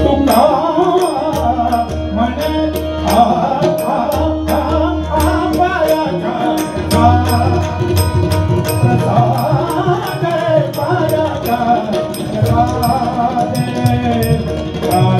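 A man sings a Hindustani-style vocal line over a harmonium, with gliding, ornamented phrases above the instrument's held notes. A tabla accompanies in a steady rhythm of sharp strokes, with deep booms from the bass drum coming and going.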